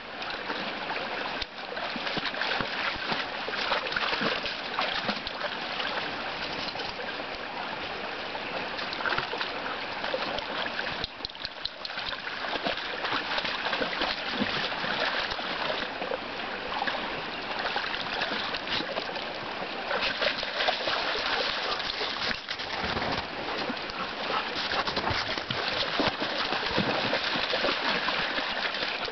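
A small snowmelt stream running steadily over rocks and logs, with dogs splashing and stepping through the shallow water from time to time.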